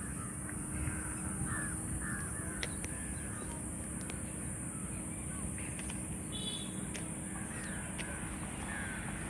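Crows cawing again and again throughout, over a steady low background noise and a faint steady high hiss.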